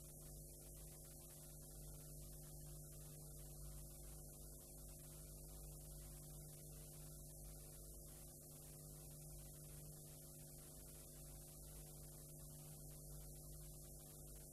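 Near silence: a faint, steady electrical hum with a high hiss, from a blank stretch of videotape.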